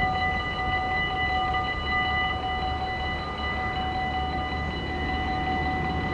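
Level-crossing warning bells ringing steadily as the half barriers come down, a constant ring of several tones over a low rumble: the crossing is closing for an approaching train.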